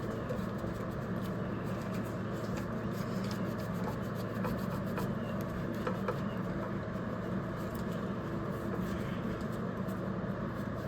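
Rag rubbing and scrubbing on a dirty CB radio during cleaning with spray cleaner, with a few faint ticks and a steady low hum underneath.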